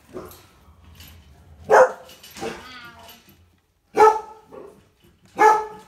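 Groenendael (Belgian Shepherd) puppy barking: three short, high-pitched barks, with a softer wavering yelp between the first two.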